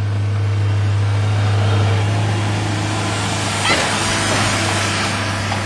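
A motor vehicle's engine running steadily: a constant low hum under an even rushing noise, with a single sharp click a little over halfway through.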